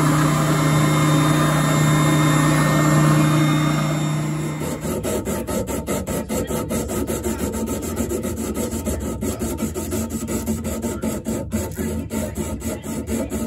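A shop machine's electric motor hums steadily, then stops about four and a half seconds in. Rapid back-and-forth strokes of sandpaper by hand on a wooden knife handle clamped in a vise follow, about four to five strokes a second.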